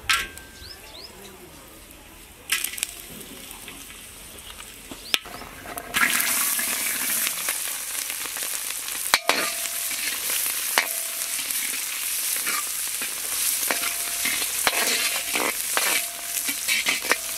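Shallots frying in hot oil in a large iron kadai: a loud steady sizzle starts suddenly about six seconds in and keeps going. Metal clinks and scrapes of a perforated ladle stirring against the pan come through it.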